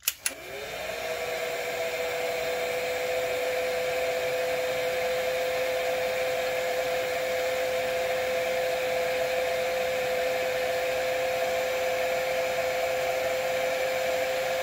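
Heat gun switched on with a click, its fan motor spinning up over about a second to a steady whine over the rush of hot air, shrinking heat-shrink tubing over soldered wire joints.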